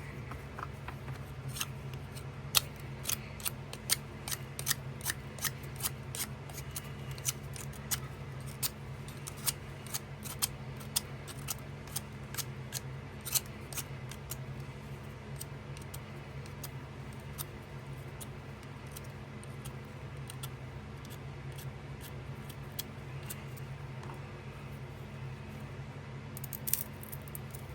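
Pocket knife whittling a stick to a point: a run of short, sharp cutting clicks of the blade in the wood, frequent through the first half and sparser after, over a steady low hum.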